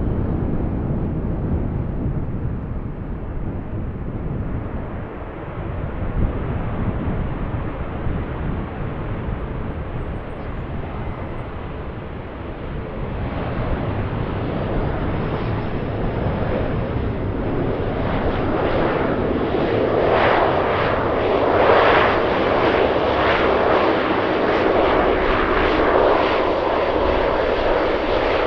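De Havilland Canada Dash 8-400 turboprop getting steadily louder as it approaches, after a low rumble in the first half; its engine and propeller noise is loudest over the last several seconds.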